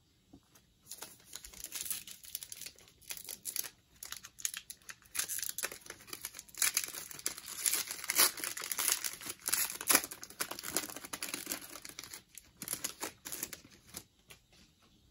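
Plastic wrapper of a football trading-card pack crinkling and tearing as it is pulled open by hand, with many sharp crackles. It starts about a second in, is loudest in the middle, and stops shortly before the end.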